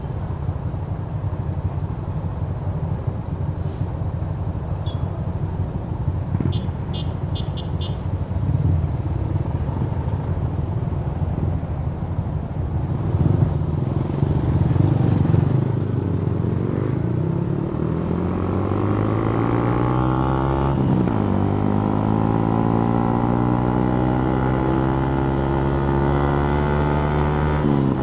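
Kymco Downtown 350i scooter's single-cylinder engine under way: a low, even rumble for the first half. Then the engine note climbs steadily as it accelerates, eases off briefly about two-thirds through, and rises again.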